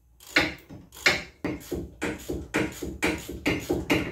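Hand ratchet tightening the rear wheel-hub bolts, clicking in quick repeated strokes about four to five times a second.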